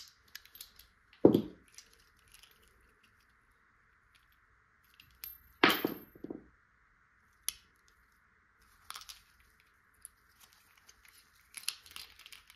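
Scattered clicks, knocks and rustles of DT Swiss hub parts handled in gloved hands: the freehub body is slid off the hub axle and two freehub bodies are held side by side. A louder knock comes about a second in and another near six seconds.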